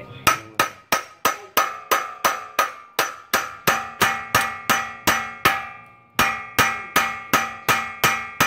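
Hammer blows on metal, about three a second, each ringing briefly, with a short pause about six seconds in: tapping the CV axle loose from the wheel hub.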